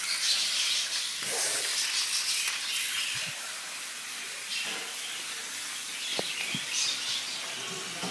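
Battery-powered toy train running along plastic track: a hissing noise, louder for the first three seconds and then softer, with a few sharp clicks along the way.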